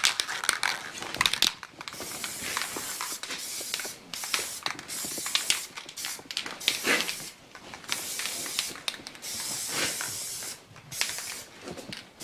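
An aerosol spray paint can is shaken, its mixing ball rattling quickly for about a second and a half. Then it is sprayed in several hissing bursts of one to two seconds each, with short pauses between.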